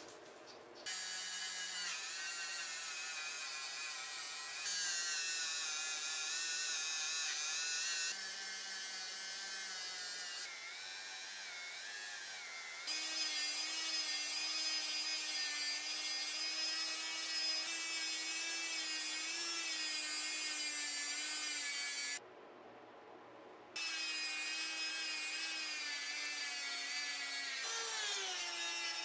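Handheld rotary tool spinning a small polishing wheel against the steel ball peen of a hammer head: a steady high motor whine with a rubbing grind as the ball face is polished. The pitch and loudness shift at several points, and it drops out briefly around two-thirds of the way through.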